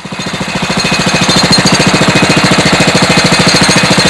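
Engine of a Mobile Drill Minuteman portable drill rig running with a rapid, even pulsing beat, building over the first second and then holding steady.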